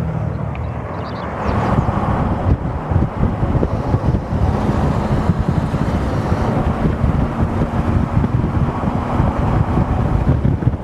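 Wind buffeting the microphone, a rough, fluttering rush of noise that grows louder about a second and a half in.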